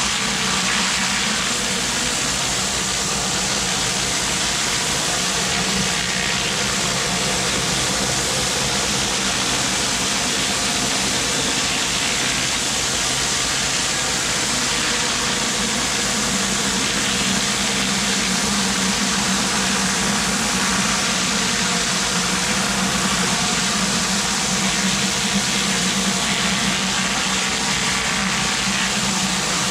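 Pressure washer running steadily: a constant engine drone under the hiss of high-pressure water spraying the concrete from the surface cleaner.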